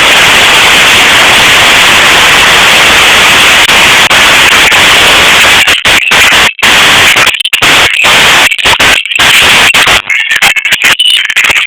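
Heavy hail coming down in a dense, loud, hissing clatter. From about six seconds in the sound starts breaking off in short gaps.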